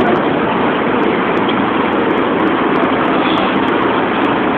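Fishing boat's engine running loud and steady, a dense rumble with no changes in pace.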